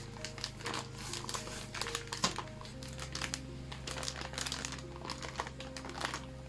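Metallic anti-static bag crinkling and rustling as hands open it around a graphics card, dying away near the end, over soft background music with held notes.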